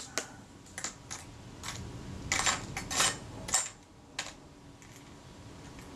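Small metal screws and camera parts clinking and rattling as they are picked through in a container of spare parts: an irregular scatter of light clicks, loudest about two to three and a half seconds in.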